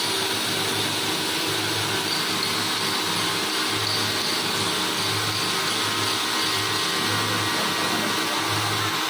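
Automatic CNC tile and slab cutting machine running: a steady motor whir with a low hum underneath.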